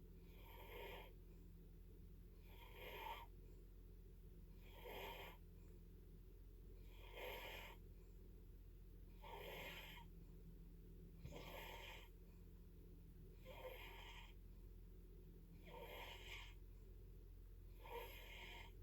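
Faint, regular snoring: a short snore about every two seconds, over a steady low hum.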